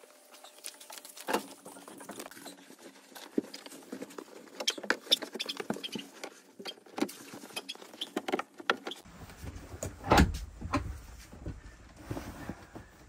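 Hands handling and fitting parts of a leather recliner sofa: a run of small clicks, taps and rustles, then a few heavier knocks, the loudest about ten seconds in.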